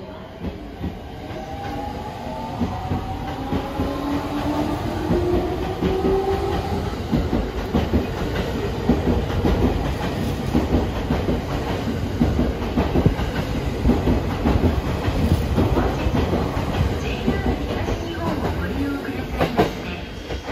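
JR East 209 series 1000-subseries electric train accelerating out of the station: the traction motors whine, rising in pitch over the first several seconds. The wheels then clack over the rail joints as the cars roll past.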